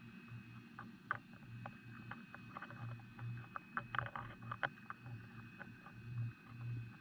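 Faint underwater sound at the camera: a low hum that comes and goes, with scattered sharp clicks and ticks that bunch together about four to five seconds in.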